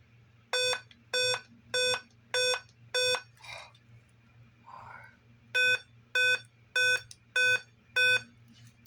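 Dell laptop's internal speaker sounding a repeating error beep code at power-on: two groups of five short, even beeps with a pause between them. It signals a hardware fault found during startup; in Dell's beep codes, five beeps points to the real-time clock (CMOS) battery.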